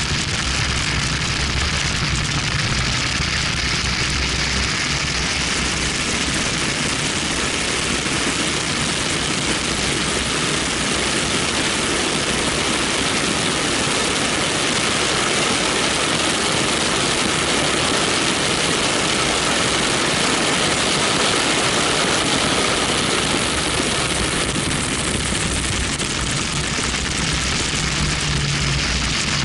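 Steady rush of wind over an action camera mounted outside a BMW 1M lapping a racetrack, with the low drone of the car's twin-turbo straight-six underneath.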